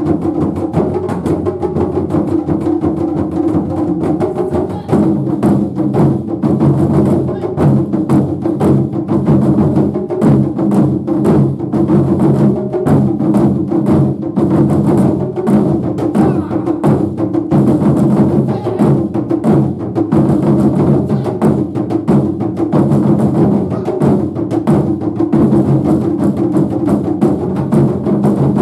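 Japanese taiko drums played as an ensemble, a fast, continuous run of strikes with ringing drum tones, the sound growing fuller about five seconds in.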